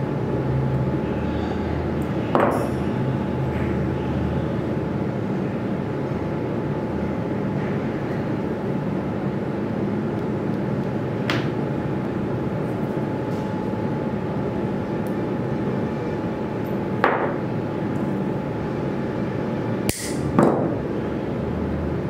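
Orthodontic wire and pliers clicking a few times, short sharp ticks as the Adams clasp wire is bent and pressed against a plaster dental cast, over a steady background hum. The clicks fall about two seconds in, near the middle, and three near the end, the last two close together.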